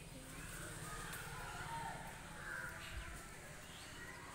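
Faint cawing of a crow, a few short calls spread over a few seconds.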